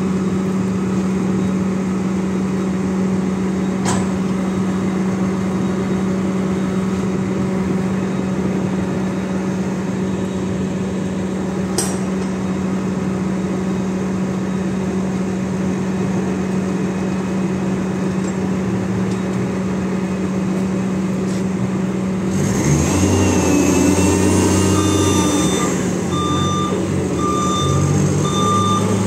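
Hyster reach stacker's diesel engine running steadily with a constant low hum. About three-quarters of the way through it revs up, and near the end its reversing alarm starts beeping repeatedly.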